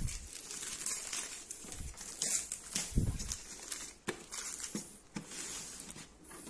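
Clear plastic wrapping crinkling and rustling as it is pulled off a new printer, with a few soft knocks as the printer and wrap are handled.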